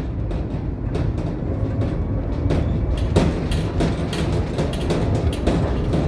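Tram running along its track: a steady low rumble of wheels on rails with frequent irregular clacks and knocks, growing busier after about three seconds.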